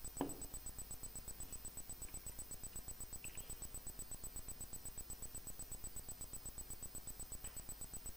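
Faint steady background noise: a fast low pulsing and a thin high whine from the recording itself. A single short knock sounds just after the start. The thin stream of oil running into the jar makes no sound that stands out.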